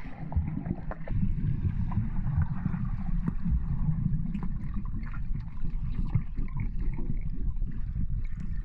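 Muffled underwater sound of a swimming pool with swimmers finning through it: a dense, churning low rumble of moving water, with scattered faint clicks and taps.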